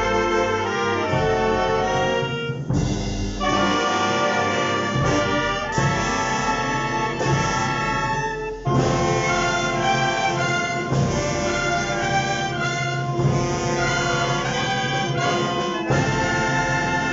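Concert wind band playing live: brass with flutes and clarinets, sustained melodic phrases with short breaks about 3 and 9 seconds in.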